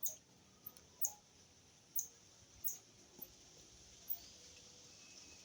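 Marmosets giving short, very high-pitched chirping calls, about one a second, faint over a light background hiss.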